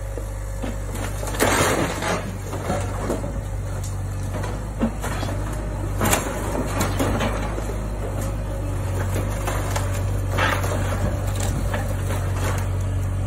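Mini excavator engine running steadily while its bucket tears into a wood-framed roof, with wood crunching and splintering in loud bursts, about a second and a half in, around six seconds and around ten seconds.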